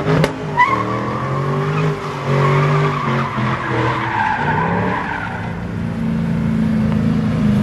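Ford Mustang doing donuts: the engine revs up and down, then holds high, while the rear tyres squeal continuously, spinning and sliding on the asphalt.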